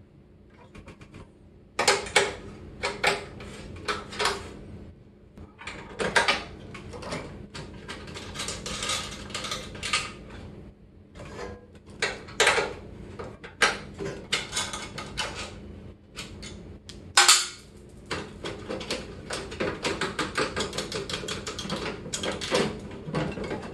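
Irregular metallic clinks, taps and rattles as a microwave oven's magnetron is worked loose and lifted out of its sheet-metal cabinet. The clatter grows denser near the end.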